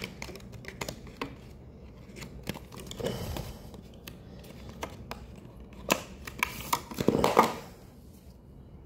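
Clear plastic packaging being handled and opened: scattered clicks and crinkles of stiff plastic, with a louder cluster of clicks and rustling about seven seconds in.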